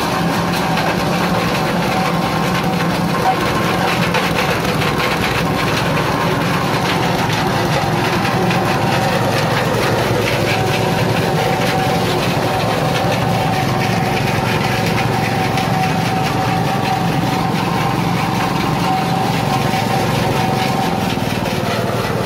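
Coconut-husk shredder driven by a small stationary engine, running steadily under load as it grinds coconut husk into coir fibre, a constant engine drone with the rotor whirring.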